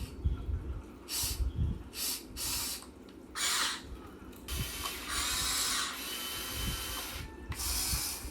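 Small electric motors of a Huina 1580 all-metal RC excavator whirring in a series of short bursts as its functions are worked, with low knocks in between.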